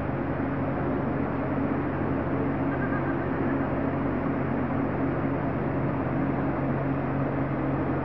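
Floodwater running through a street: a steady rushing noise. Under it is a constant low hum of an engine running without change.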